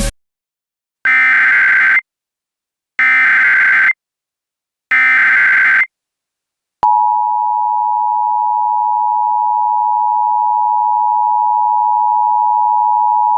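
Emergency Alert System tones: three bursts of SAME header data, each about a second long with a second of silence between them, followed about 7 seconds in by the steady two-tone EAS attention signal. This is the sequence that marks the start of an emergency alert broadcast.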